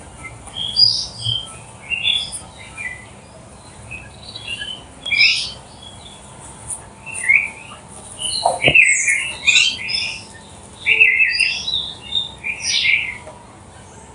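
Birds chirping: many short, quick calls, some overlapping, busiest from about halfway through.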